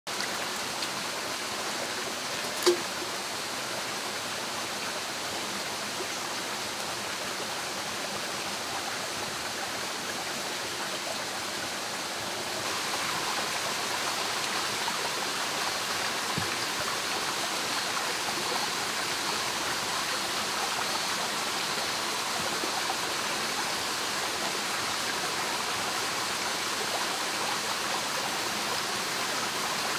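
Shallow rocky stream flowing steadily, water rushing and babbling over stones. A single sharp click stands out about three seconds in, and the water gets a little louder about twelve seconds in.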